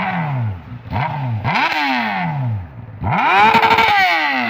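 Honda Hornet 600 motorcycle engine being revved in blips and falling back to idle. There is a quick blip about a second in and another rev half a second later. Near the end comes a higher rev that is held for about a second before it drops away.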